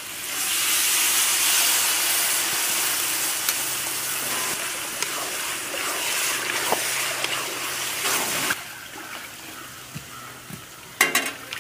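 Water poured into chicken and spice masala cooking in a hot pot, hissing and sizzling loudly, then stopping suddenly after about eight seconds.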